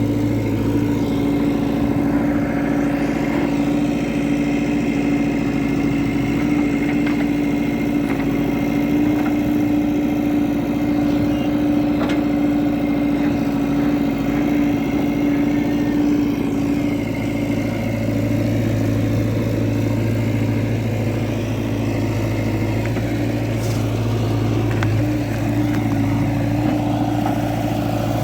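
Heavy diesel engine of earth-moving machinery running steadily at an even speed. A deeper engine hum fades out about a second in and returns about two-thirds of the way through.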